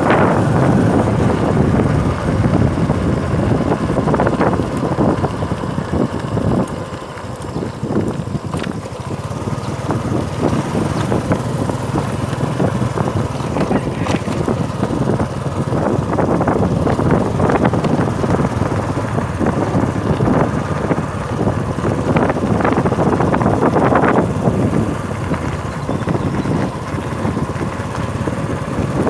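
Wind buffeting the microphone over the steady noise of a moving vehicle, gusting up and down.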